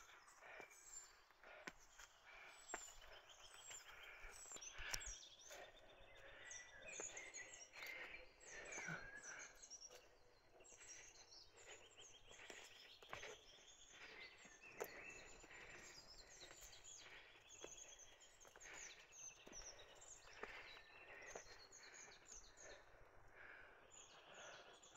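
Faint birdsong in woodland: many short chirps and trills from several birds overlapping, with a few soft clicks scattered through.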